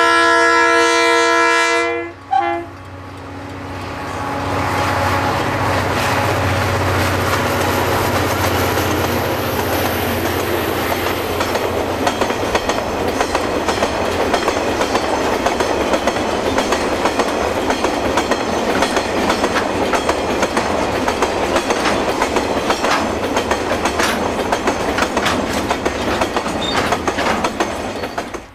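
A DFB-class diesel locomotive sounds its multi-note horn, which cuts off about two seconds in with one short final toot. The DFB and DXB diesel locomotives then pass with a low engine rumble, followed by a long train of milk tank wagons, the wheels clicking steadily over the rail joints.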